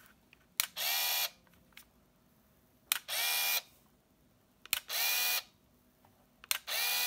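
Canon Prima BF-800 compact 35mm film camera firing four times: each shutter click is followed by about half a second of the motor whirring as it winds the film on to the next frame.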